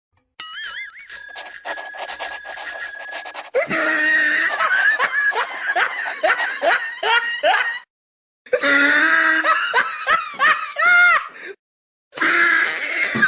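Laugh-track sound effect: bursts of loud laughter, cut off by two short silences about 8 and 12 seconds in. It is preceded by a short warbling electronic tone with rapid clicking.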